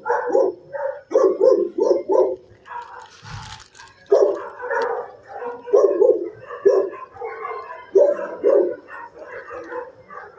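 Dogs barking repeatedly in a shelter kennel block, in quick runs of barks with short gaps between them.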